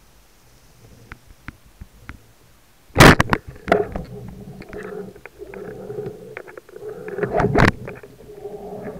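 Underwater speargun shot: one sharp, loud crack about three seconds in. After it come scattered clicks and a steady low hum from the gun and its line as the speared fish pulls, with another loud knock about seven and a half seconds in.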